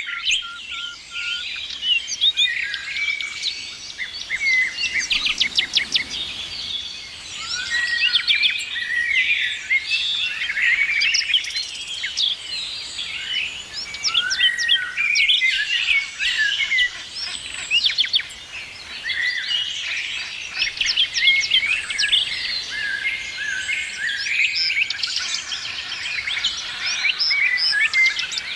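Several songbirds singing and chirping at once, a dense overlapping chorus of trills, rapid chirps and short whistles.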